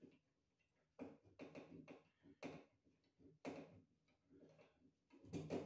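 Faint, irregular clicks and rattles of a screwdriver turning screws into a ceiling-fan mounting bracket at an electrical box, with the loudest clatter near the end.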